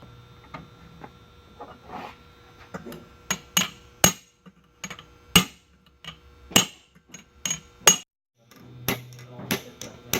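Hammer blows on a metal channel piece being bent to shape: a few light taps, then from about three seconds in a dozen or so sharp, irregular metallic strikes.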